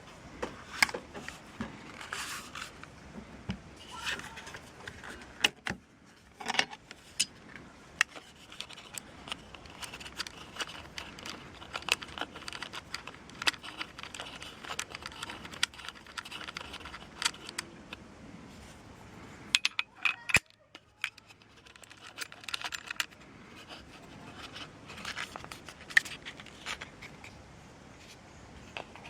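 Metal parts of a Walther P38 CO2 air pistol being handled: irregular clicks, rattles and scrapes, with one sharp click a little past two-thirds of the way through.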